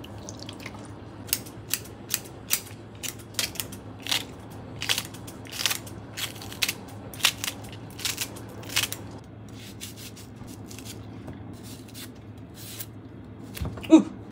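A run of sharp, irregular clicks, about two a second, over a steady low hum. They thin out after about nine seconds, and one louder knock comes near the end.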